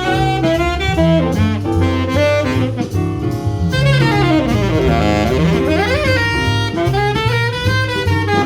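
Jazz saxophone soloing over walking double bass and drums, playing quick melodic lines with a fast run that sweeps down and climbs back up midway through.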